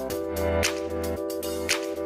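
Background music with held chords and a steady beat.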